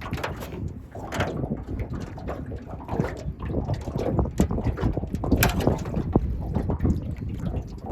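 Wind buffeting the microphone, with irregular knocks, scrapes and splashes as a crab trap is hauled up by its line into an aluminum boat.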